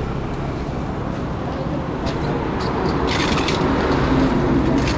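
Steady road traffic noise, with a few short hissing rasps between about two and three and a half seconds in and another near the end.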